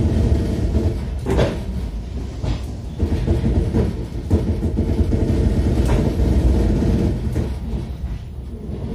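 Passenger train rolling along the track, heard from aboard: a steady low rumble of the carriage with a few sharp clacks of wheels over rail joints, spaced a second or more apart.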